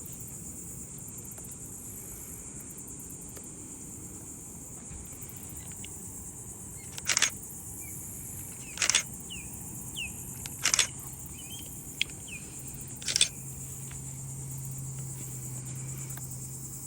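Steady high-pitched insect chorus from the marsh. Four brief, loud, sharp sounds cut through it at intervals of about two seconds in the second half, with a few faint chirps. A low steady hum comes in about three-quarters of the way through.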